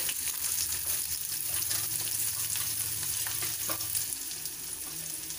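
Chopped onions sizzling in hot oil with cumin seeds in an aluminium pan: a steady hiss with a few faint clicks.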